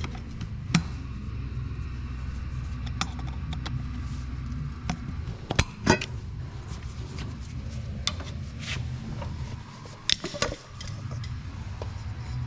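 Metal tools clinking and knocking on a Honda Foreman ATV's rear axle parts as a part is pried open: scattered sharp knocks, the loudest about a second in, near six seconds and near ten seconds, over a steady low hum.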